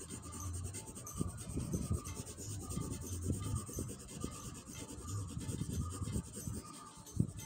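Coloured pencil shading on drawing paper: irregular rubbing strokes, several a second.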